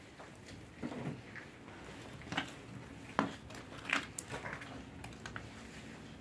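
Quiet small-room ambience with a handful of scattered sharp clicks and light knocks, a second or so apart.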